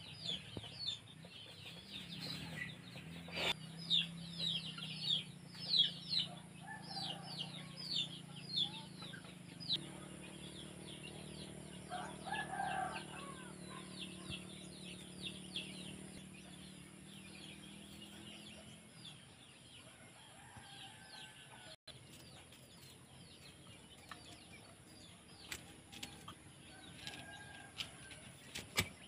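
Backyard chickens and birds calling: many quick, high falling chirps through the first ten seconds, then a louder, lower call about twelve seconds in, with scattered calls after. A low steady hum runs under the first two thirds.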